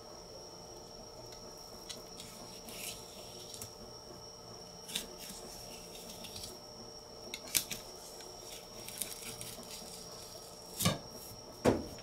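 A knife cutting a small yellowtail amberjack (hiramasa) fillet away from the backbone on a cutting board: soft scrapes and ticks of the blade along the bones, with two louder knocks near the end.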